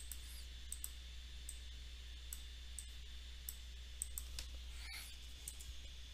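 Faint, irregular clicks of a computer mouse and keyboard, about a dozen over a few seconds, over a steady low electrical hum.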